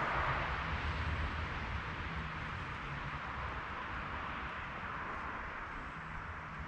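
Steady rush of flowing creek water, easing slightly, with an uneven low rumble underneath.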